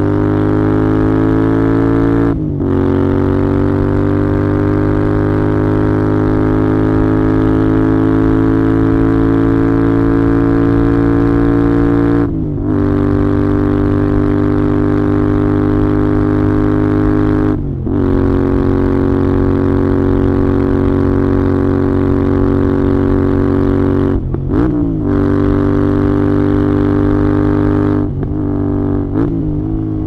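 Royal Enfield Interceptor 650's parallel-twin engine and exhaust under way, the pitch climbing slowly as it pulls. There are brief breaks about 2, 12 and 18 seconds in, as it shifts gear, and a few quick dips and rises in pitch near the end.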